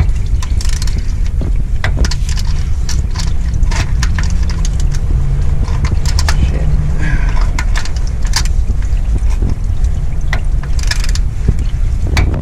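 A steady low rumble with scattered light clicks and knocks, as an oil filter is worked loose and handled under the car.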